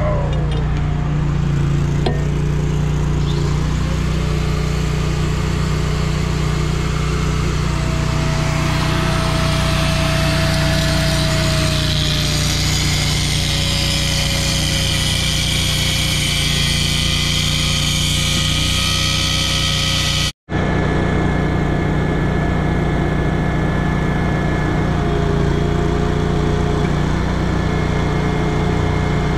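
Angle grinder grinding on a semi truck's steel driveshaft, its whine sinking slightly under load, over the steady drone of a running engine. The sound cuts out for an instant about two-thirds of the way through, leaving the engine drone with faint tones.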